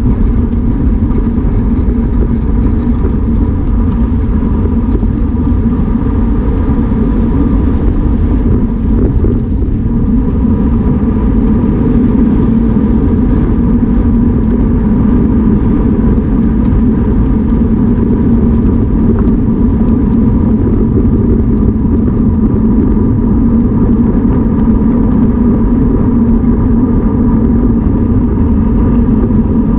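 Wind rushing over a bike-mounted action camera's microphone while riding at race speed in a pack of road cyclists, with road-bike tyres rumbling on cracked concrete: a loud, steady rumble.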